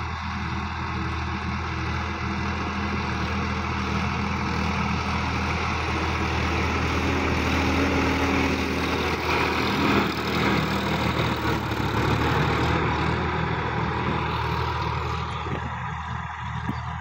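Sonalika DI-50 RX tractor's diesel engine running steadily under load as it pulls a tillage implement through dry soil. It grows louder as the tractor passes close by about halfway through, then fades as it drives away.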